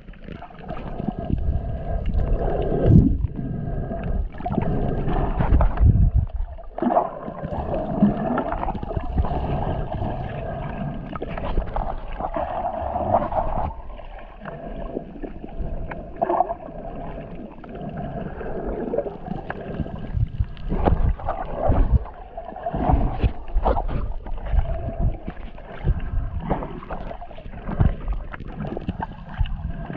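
Muffled underwater sound picked up by a camera held below the surface: water sloshing and gurgling with irregular low rumbles and knocks, over a steady hum.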